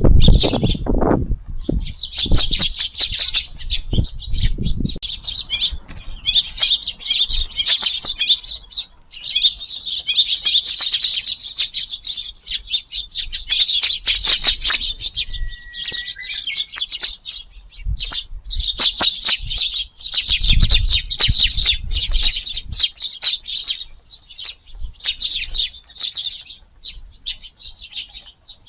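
A flock of Eurasian tree sparrows chirping densely and almost without a break. A few low rumbles sit underneath near the start and again about two-thirds of the way through.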